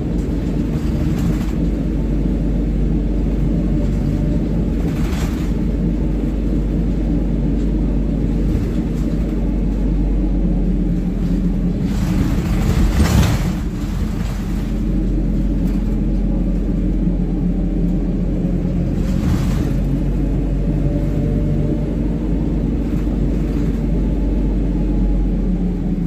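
ADL Pointer Dart single-decker bus under way, heard from inside the passenger saloon: a steady engine drone over road rumble. Brief swells of noise come several times, the loudest about halfway through.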